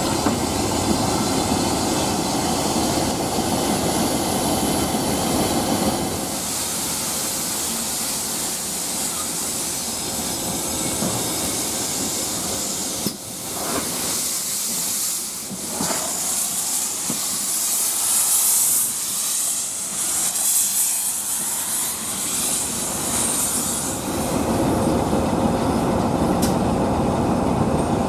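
GWR Castle class steam locomotive and its train on the move: a heavy rumble of wheels on rail at the start and again near the end, with a loud hiss of steam through most of the middle.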